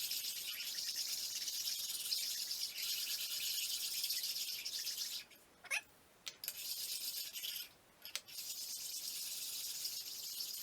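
Bench stone rubbed over the vise base, a steady scratchy hiss that stops twice for a moment. A short squeak sounds in the first pause.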